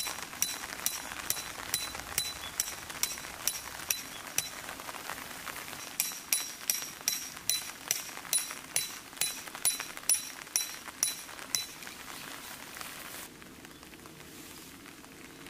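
A hammer driving a metal tent stake into the ground: a steady run of ringing metal-on-metal strikes, about two to three a second, pausing briefly about four seconds in and stopping near twelve seconds. Rain hisses underneath throughout.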